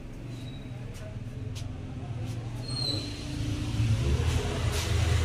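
Low, steady background rumble of a shop, with a few faint clicks, growing louder over the last couple of seconds.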